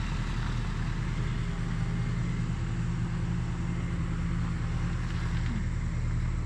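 A vehicle engine running steadily with an even, low hum.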